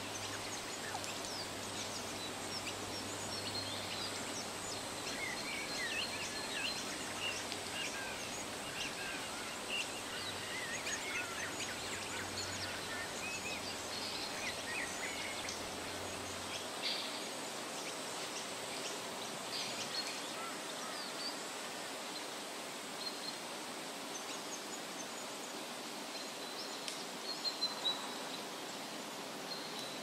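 Forest ambience: many small birds chirping and calling over a steady hiss, with a few louder calls near the end. A faint low hum drops out about halfway through.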